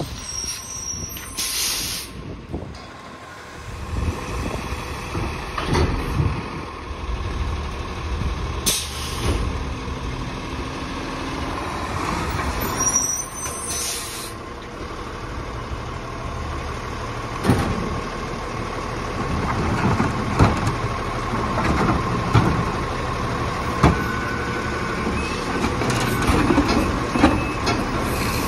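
Autocar ACX garbage truck running at low speed, with three short air-brake hisses in the first half. Sharp knocks and bangs come in the second half.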